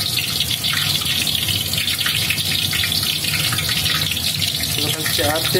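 Lemongrass stalks sizzling in hot oil in a wok: a steady hiss with small crackles.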